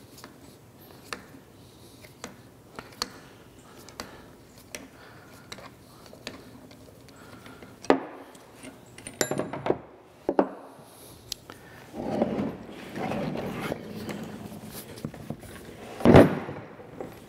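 A hex key working the set-over adjusting screws of a cast-iron lathe tailstock, with light metal clicks about once a second. Later come a sharp knock, a few clinks, a stretch of scraping as the heavy castings are handled, and a loud thump near the end as cast iron meets the steel bench.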